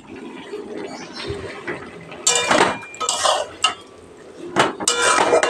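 Metal spatula stirring and scraping a soybean curry around a metal kadai (wok), with a light metallic ring. Quiet at first, then a run of short scraping strokes from about two seconds in.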